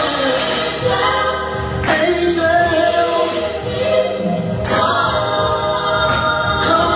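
Gospel song playing: choir-style singing over keyboard accompaniment.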